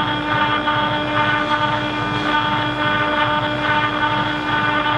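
CNC router spindle running with a fine engraving bit cutting into an aluminium plate: a steady whine at several pitches over a rough, uneven cutting noise.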